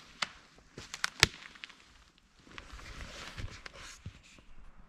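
Footsteps through forest undergrowth: a few sharp snaps in the first second and a half, the loudest just after a second in, then a couple of seconds of rustling.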